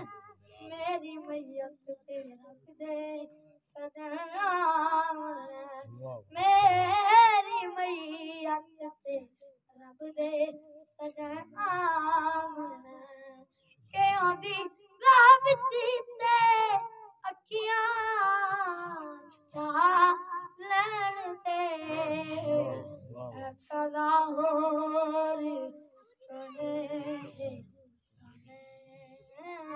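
A boy reciting a naat unaccompanied in a high, ornamented voice, singing in phrases of a few seconds with short pauses between them.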